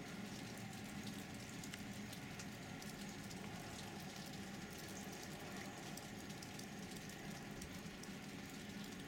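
Faint, steady outdoor ambience: an even hiss with scattered light ticks and no distinct event.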